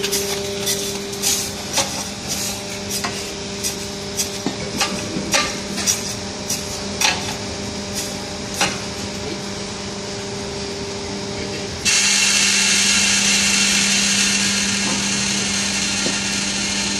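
Hydraulic scrap baling machine's motor and pump running with a steady hum, while scrap wire is pushed into the hopper with many sharp metal knocks and clinks for the first nine seconds. About twelve seconds in, the machine's sound abruptly steps up louder with a steady hiss added.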